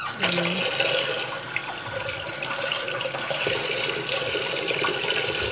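Steady rush of running water in a bathroom, with a thin whine held over it.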